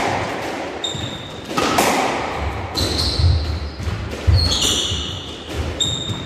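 Squash rally: the ball cracks off the rackets and walls every second or so, each hit echoing around the court. Between the hits, shoes squeak briefly on the wooden floor, and footsteps thud from about two and a half seconds in.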